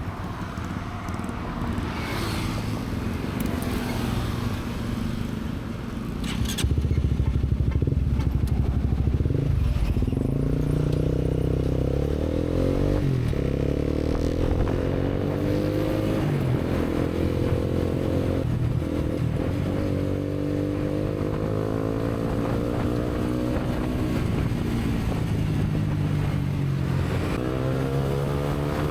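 Honda CBR150R single-cylinder engine on the move: running softly at low revs, then about six seconds in it gets louder and the revs climb and fall back several times as it shifts up through the gears.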